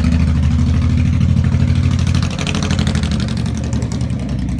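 A car engine running close by with a steady low hum that drops a little in level a couple of seconds in.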